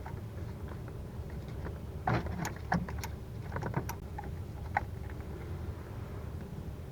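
Scattered light clicks and knocks of cables and tools being handled, a few irregular ticks over a steady low hum.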